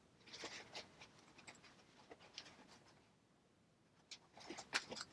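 Faint scratchy rustling of waxed polyester thread being drawn through heavy canvas and the fabric being handled during hand-stitching, with a near-silent pause about three seconds in and a cluster of louder rustles near the end.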